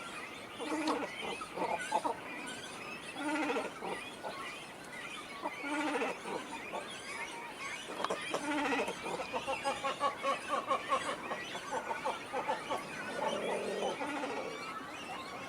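Great cormorants calling at a nesting colony: many overlapping guttural croaks and grunts, with rapid runs of pulsed calls from about eight seconds in.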